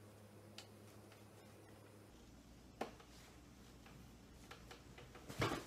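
Quiet room tone with a few soft clicks and ticks and a short, louder rustle near the end, from a dress being handled over a hoop skirt.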